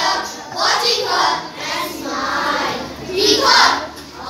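A group of young boys' voices performing together in unison, in chorus, in phrases that rise and fall with short gaps between them.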